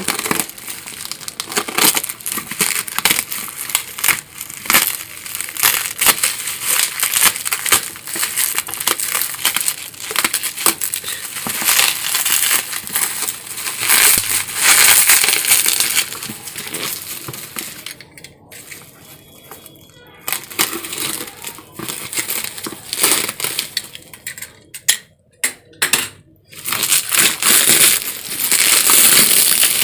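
Plastic courier mailer and bubble wrap crinkling and crackling as hands unwrap a packaged box, with a couple of short pauses in the last third.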